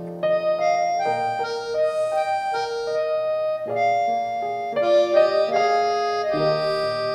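Background music: a keyboard melody of sustained, changing notes over low chords.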